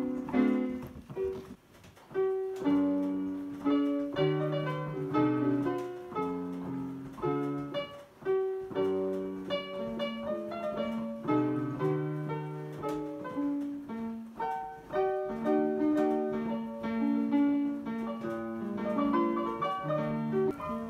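A Roland JV-90 synthesizer's piano sound, played from a paper roll by an Aeolian push-up piano player whose wooden fingers press the keys while its bellows are pumped by hand. A steady run of notes and chords, with brief dips about two and eight seconds in.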